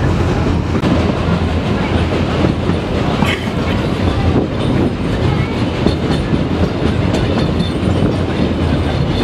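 Narrow-gauge steam train under way, heard from aboard a carriage: a steady rumble with the wheels clattering over the rail joints.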